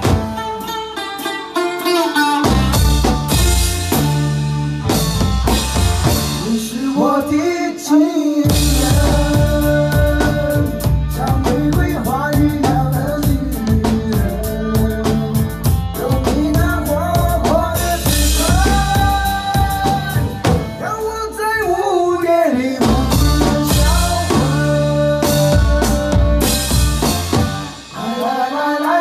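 Acoustic drum kit played live by a child, bass drum, snare and cymbals keeping a steady beat under a Chinese pop song, with a man singing the melody into a microphone. The drums drop back briefly about two seconds in and again near the end.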